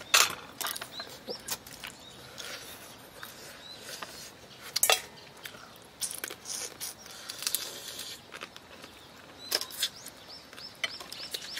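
Eating sounds of people working through boiled crab and shellfish by hand: shells cracking, sucking and chewing, with scattered sharp clicks.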